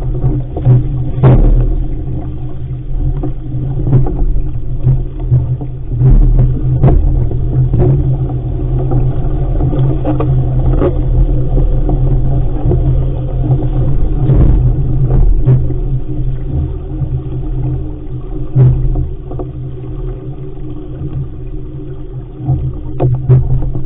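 Loud, steady low rumble of wind buffeting the microphone on an RS500 sailing dinghy under way, with scattered short knocks and slaps from the hull and rigging.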